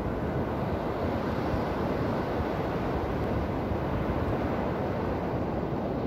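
Atlantic surf breaking and washing up a sandy beach: a steady rush of wave noise without breaks.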